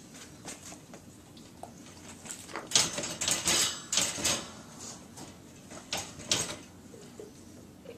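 Wire dog crate rattling and clinking as a large dog shifts and turns inside it, in a cluster of clatters about three seconds in and a shorter pair around six seconds.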